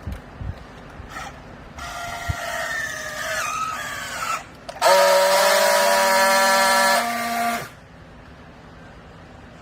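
Vertical hydraulic baler running: a whine that wavers in pitch for a couple of seconds, then a louder, steady whine for about three seconds that cuts off.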